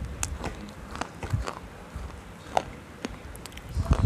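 Close-miked mouth sounds of crunching and chewing something hard and brittle: sharp cracks at uneven intervals, with a louder crack about two and a half seconds in and a cluster of bites near the end.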